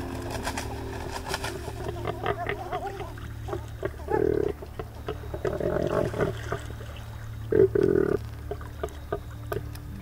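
Australian pelicans grunting: two loud, low grunts, one about four seconds in and a longer one near eight seconds, with scattered clicks and softer calls between them.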